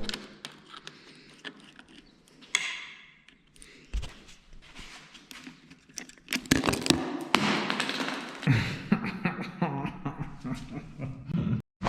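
Workshop handling sounds: scattered clicks, taps and knocks of hand tools and small parts while a motorcycle's handlebar brake fluid reservoir is being unscrewed and swapped, with a short rustle a few seconds in and a busier run of clicks past the middle.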